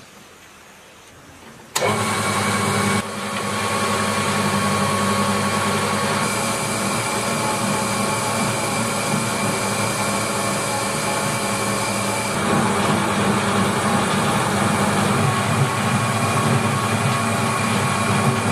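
The restored old metal lathe starts up suddenly about two seconds in and runs steadily, its motor and headstock making a loud hum built of several steady tones. The tone shifts slightly a few times as it runs.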